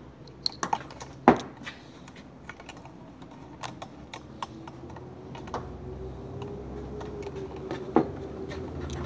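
Irregular small clicks and taps of meter test probes and a plastic ignition coil being handled, with a sharp knock about a second in and another near the end. A faint low hum comes up a little past halfway.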